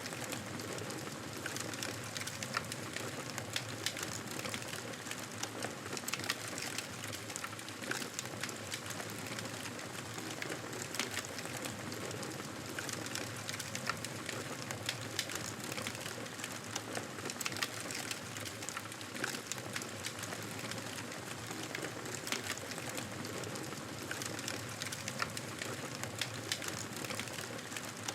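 Wood fire burning, with a steady hiss and frequent irregular crackles and pops.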